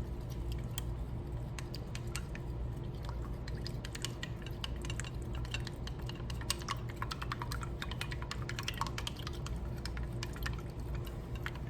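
Eggs being whisked with chopsticks in a bowl: a fast, irregular run of light clicks of the chopsticks against the bowl, over a steady low hum.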